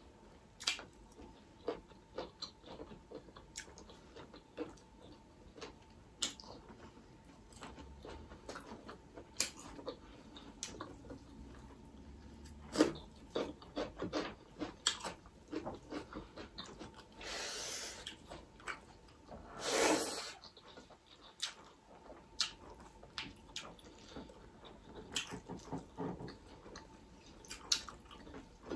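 Close-miked eating by hand: chewing and mouth smacks heard as scattered sharp clicks, with two longer hissing sounds about 17 and 20 seconds in.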